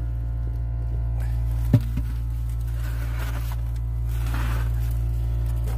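Footsteps crunching on gravel, two short scuffs, with a sharp click a little under two seconds in, over a steady low hum.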